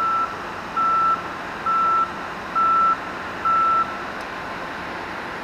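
An electronic beeper sounding a steady high-pitched beep about once a second, five times, then stopping, over a steady rushing hiss.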